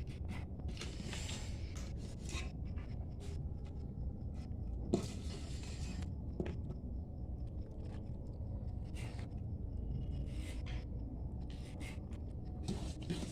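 Scraping and rubbing handling sounds with scattered light clicks and one sharper knock about five seconds in, over a steady low rumble.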